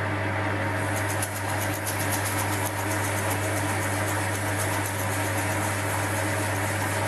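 Small Chinese bench metal lathe running steadily, its motor giving a steady low hum. Emery tape is held against the spinning steel workpiece, adding a faint scratchy hiss from about a second in.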